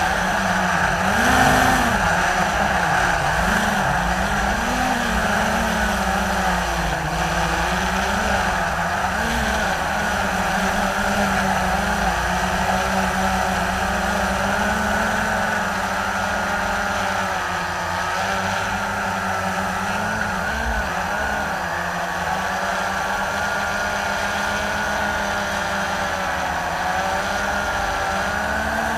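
Blade 350 QX3 quadcopter's electric motors and propellers whirring steadily, heard close up from the onboard camera, with their pitch wavering up and down as the throttle changes in flight.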